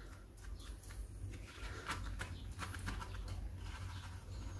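Fingers pressing and working grated lemon zest against a plastic strainer over a bowl of liquid, giving faint wet squishes and scattered small clicks and ticks.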